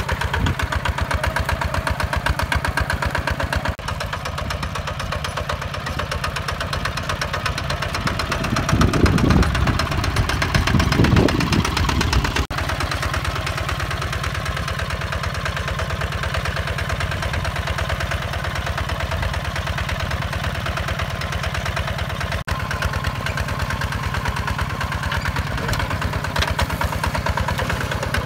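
Hinota HG Gold 155 DI walking tractor's single-cylinder diesel engine running steadily under load while it pulls a plough through dry soil, with a few seconds of heavier low rumble near the middle.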